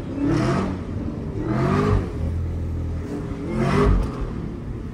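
Supercharged 6.2-litre V8 of a Chevrolet Camaro ZL1 1LE revving three times, the pitch rising with each rev, heard from inside the cabin.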